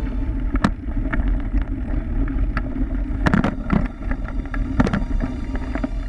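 Wind buffeting the camera's microphone as a bike is ridden fast over a rough dirt trail: a steady low rumble, broken by sharp clattering knocks from the bike going over bumps. The knocks come every second or so and bunch together a little past the middle.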